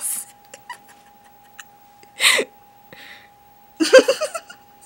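A girl giggling: a short breathy laugh about two seconds in and a burst of giggles near the end.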